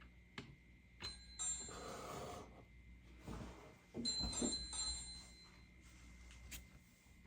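Two short high-pitched bell-like dings, about 1 s and 4 s in, each starting with a sharp click and ringing for about a second. Between them comes the rustle and clatter of toy pieces being handled.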